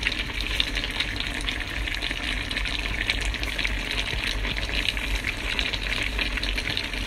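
A pot of pinakbet vegetable stew boiling on the stove: steady bubbling with many fine crackles.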